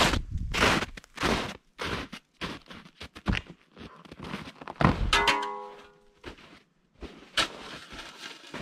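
Footsteps crunching through crusted snow in irregular steps, with a few knocks. A fiddle tune comes in about five seconds in.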